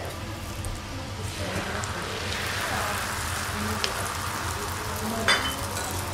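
Butter and beaten egg sizzling on a flat steel teppanyaki griddle; the hiss grows fuller from about a second and a half in as the egg is poured out and spreads. A sharp click about five seconds in.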